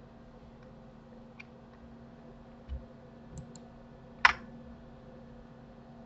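Scattered clicks of a computer keyboard and mouse, a handful of faint ones and one loud keystroke about four seconds in, over a steady low hum.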